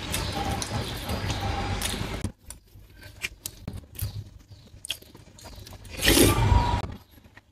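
Eating sounds: a dense rustling noise that stops abruptly after about two seconds, then scattered clicks of cutlery against a dish, and a loud scrape of about a second near the end.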